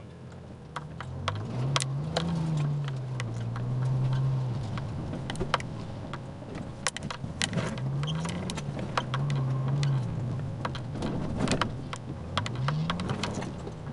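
Toyota FJ Cruiser's V6 engine heard from inside the cab, three times rising in revs, holding and easing back as it drives a rutted, muddy track. Many short clicks and knocks of the cabin jolting over the bumps run over it.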